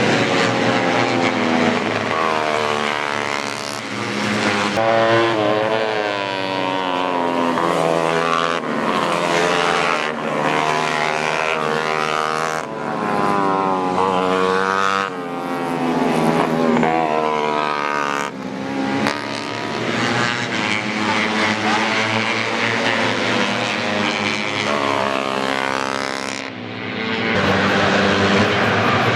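Several 150cc four-stroke underbone race motorcycles revving hard, their engine notes rising and dropping back again and again as they shift gears, overlapping one another, with abrupt changes every few seconds.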